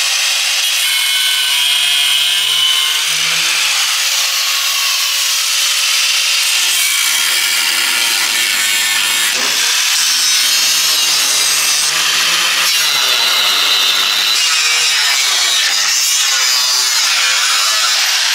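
Small angle grinder with a cutting disc running and cutting into a GMC pickup's wheel well, a loud, steady grinding hiss whose tone changes about seven seconds in.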